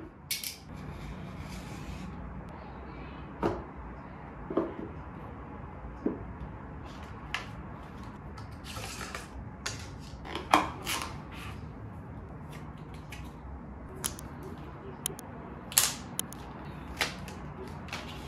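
Unboxing handling of a smartphone's cardboard box and its contents on a wooden tabletop: scattered taps, clicks and rustles as the box, inner tray, accessories and plastic film are lifted out and set down, over a faint steady low hum.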